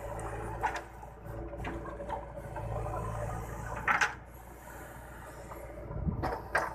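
Scuffs and crunches of a person moving on dry, stony dirt and handling the phone: a few short strokes, the loudest about four seconds in and a small cluster near the end, over a low steady hum.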